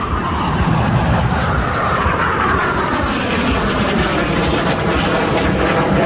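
Jet aircraft flying past overhead: loud engine noise that builds, with a whining tone that falls steadily in pitch as it goes by.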